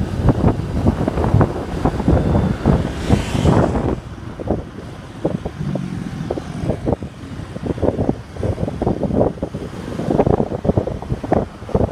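Wind buffeting a phone microphone in a moving car, over the rumble of road and traffic noise. The buffeting is heaviest in the first few seconds and eases after about four seconds.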